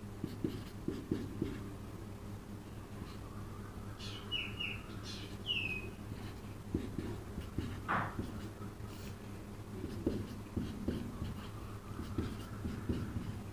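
Marker writing on a whiteboard: faint scattered taps and scrapes over a steady low electrical hum. A small bird gives a few short, high, falling chirps about four to five seconds in.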